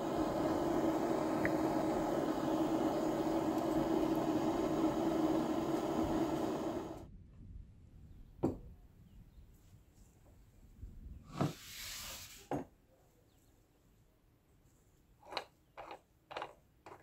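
A steady, noisy hum for about the first seven seconds, cutting off abruptly. Then a glass of oil is set down on a wooden workbench with a single knock, followed by a couple more knocks and a brief hiss, and three quick small clicks from a plastic bottle cap being handled near the end.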